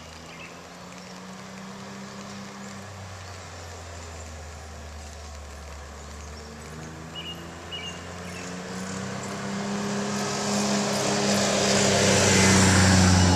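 John Deere Gator utility vehicle's engine running as it drives up the road, growing steadily louder. It passes close by near the end with a rising rush of noise.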